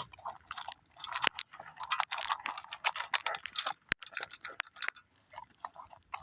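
A Rottweiler eating from its food bowl, chewing with a quick, irregular run of crunches and a few sharper clicks.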